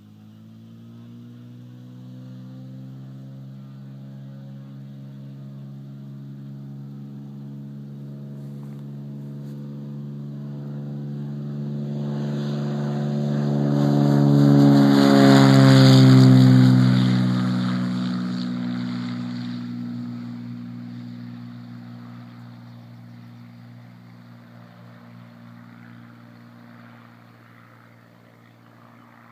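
Cirrus SR22's six-cylinder piston engine and propeller at full takeoff power on a soft-field takeoff run. It grows steadily louder as the plane approaches, is loudest about halfway through, drops in pitch as it passes, then fades into the distance.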